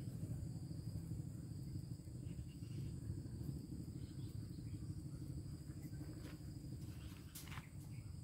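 Quiet outdoor ambience: a low steady rumble with faint, steady insect chirring high above it, and a brief click about seven seconds in.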